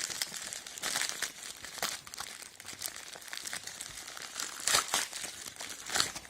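Amazon delivery packaging being handled and opened by hand: irregular rustling and crinkling, with a few sharper rustles near the end.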